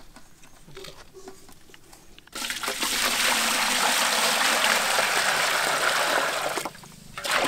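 Water poured from a vessel into a steel bowl, splashing steadily for about four seconds. The pouring stops briefly, then starts again near the end. It is the water for a final rinse of fish in salt, turmeric and lemon juice.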